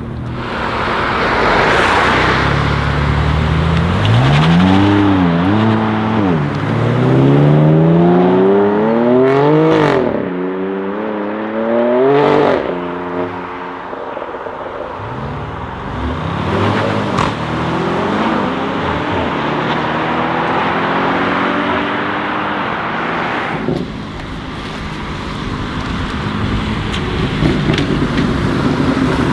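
BMW M4 F82's twin-turbo straight-six with an Akrapovic titanium exhaust accelerating hard: the engine note climbs and falls back at each upshift, with sharp cracks at a couple of the shifts, until it lifts off about twelve seconds in. A second, shorter pull follows and then fades.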